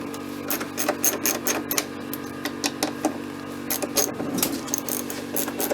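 Ratchet wrench clicking in short irregular runs while loosening 10 mm bolts on a minivan's sliding door panel, over a steady low hum.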